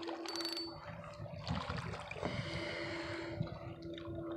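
Small water lapping at a lakeshore under a faint steady hum, with a few light clicks near the start from a spinning reel being handled.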